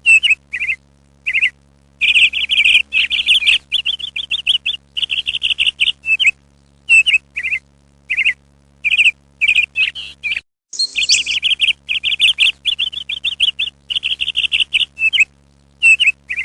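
Small birds chirping and trilling over and over in quick, high, short phrases, over a steady low hum. All sound drops out briefly about ten seconds in, then the chirping resumes.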